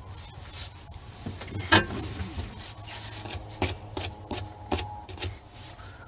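Scattered faint clicks and rustles over a low steady hum, with no speech.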